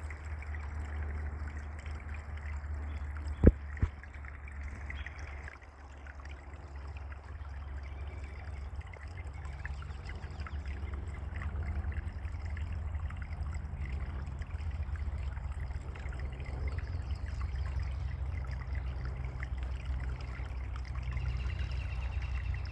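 Steady trickling water with a low rumble underneath. Two sharp knocks come about three and a half seconds in.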